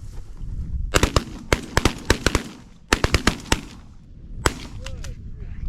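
Volley of shotgun fire from several hunters shooting at incoming ducks: about a dozen sharp blasts in two quick clusters over two and a half seconds, then one last shot about a second later.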